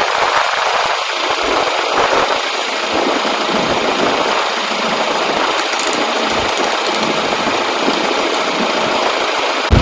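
An engine running steadily, heard as an even, unchanging noise.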